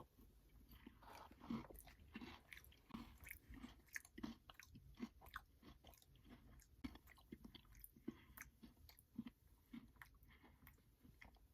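Faint chewing and mouth sounds of someone eating a key lime pie yogurt, heard as soft, irregular clicks and smacks.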